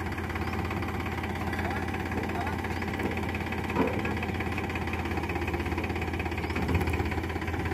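Powertrac Euro 50 tractor's diesel engine running steadily at low speed, with an even low hum and pulse.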